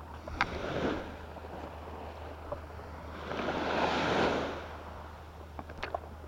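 Small waves washing on a sandy beach, a rushing swell that builds and fades, loudest about four seconds in, with a smaller one near the start. A few short sharp pips come just before the start and near the end.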